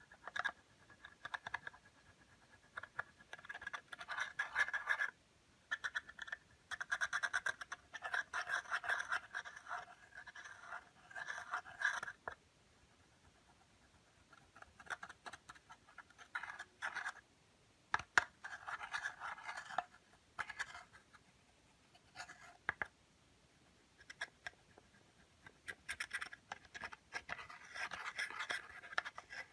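Hands working clear slime, making sticky crackling and clicking sounds in bursts of a second or two with short pauses between.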